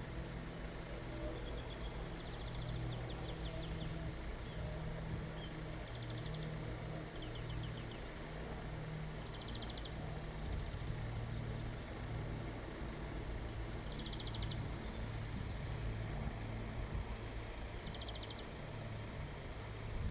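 Low, steady engine hum, with short, fast high trills of a small bird recurring every few seconds over it.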